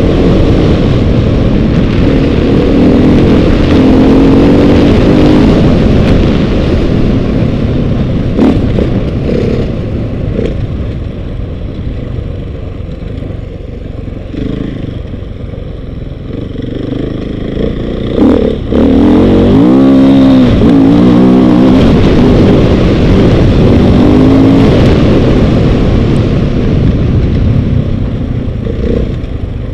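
KTM off-road motorcycle engine revving up and easing off as the rider accelerates and shifts through the gears, heard from the rider's seat. The revs drop lower for a few seconds near the middle, then climb again in quick rising sweeps, with a couple of sharp knocks along the way.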